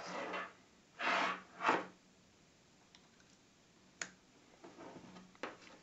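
Handling noise as a USB-C cable is plugged into an Intel RealSense D435 depth camera: a few short rustles in the first two seconds, then a sharp click about four seconds in as the plug seats in the camera's socket, followed by a few faint clicks.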